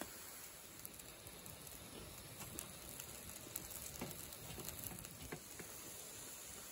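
Food sizzling faintly on a wire grill over glowing charcoal, with scattered small crackles and pops.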